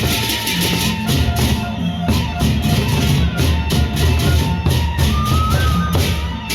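Gendang beleq ensemble playing: large Sasak barrel drums beat a fast, dense rhythm under clashing cymbals, with a short melodic line of high tones on top. The playing eases briefly at the very end.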